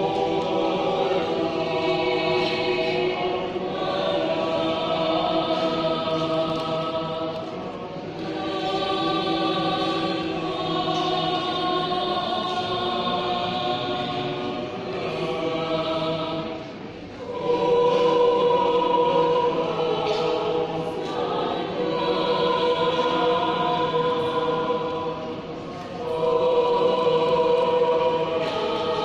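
Mixed choir singing a German Romantic choral piece in sustained chords, phrase after phrase with brief breaths between them; after a short dip about two-thirds of the way through it comes back louder.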